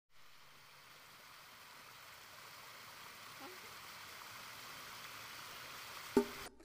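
River water rushing: a faint, steady hiss that slowly grows louder. About six seconds in a sudden short knock with a brief low tone, the loudest moment, and then the sound cuts out.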